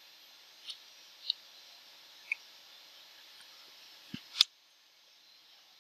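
A few separate computer keyboard keystrokes over a faint steady hiss, the loudest about four seconds in, a dull thud followed closely by a sharp click.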